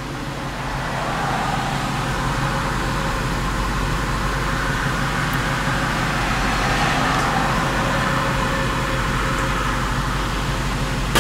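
2003 Lincoln LS engine idling steadily, freshly filled with 0W-20 oil, heard from inside the cabin, with a steady hiss over it that grows a little louder in the first couple of seconds.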